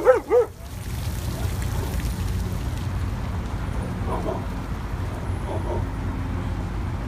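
A dog gives a couple of quick barks at the very start, then a steady low rumble of city traffic runs on, with faint short calls about four and five and a half seconds in.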